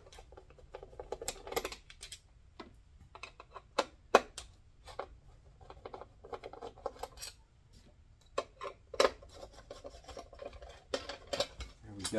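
A hand screwdriver backing screws out of the metal GCX mounting plate on the back of a GE Dash 3000 patient monitor: irregular small clicks and scraping of metal on metal.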